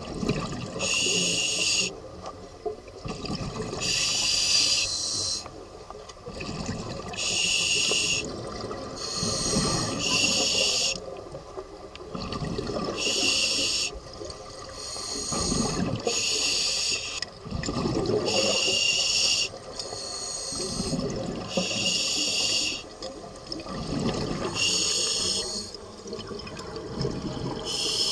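Scuba diver breathing through an open-circuit regulator underwater. A hiss on each breath alternates with rumbling, bubbling exhalations, repeating about every two to three seconds.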